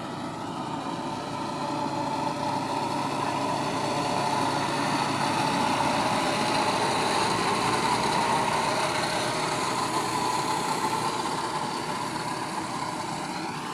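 Diesel engine of a Mahindra Earthmaster SX90 backhoe loader running steadily, growing louder over the first few seconds and easing off a little near the end.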